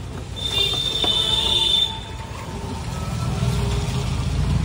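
A high, steady squeal lasts about a second and a half, then a motorcycle engine rumbles past on the wet road, growing louder toward the end.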